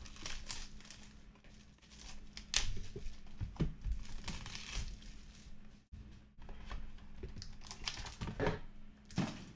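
Plastic wrapping crinkling and tearing as a sealed box of trading cards is unwrapped and opened by hand, with the cardboard box being handled. The rustling comes in irregular bursts, loudest about two and a half seconds in and again near the end.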